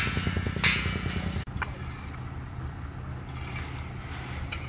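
Construction-site sounds: two sharp clanks about half a second apart in the first second over a running engine, then a steady engine hum with a few faint scrapes of shovels in dirt.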